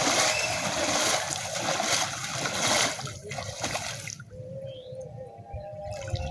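Water splashing and pouring loudly for about four seconds, with a brief break near the three-second mark, then dropping to a quieter trickle.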